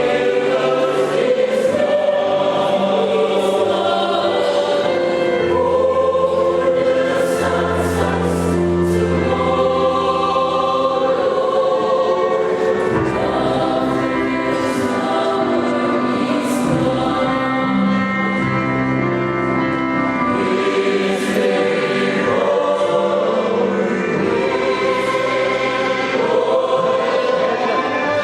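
A school choir singing in several parts, holding sustained chords that move from note to note.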